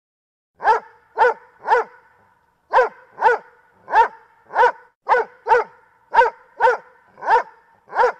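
A dog barking: three quick barks, a pause of about a second, then ten more at a steady one to two barks a second.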